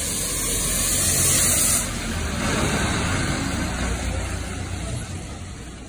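Diesel bus engine running as the bus pulls in and passes close by, with the hiss of its tyres on the wet road. The hiss is strongest in the first two seconds, and the sound fades toward the end.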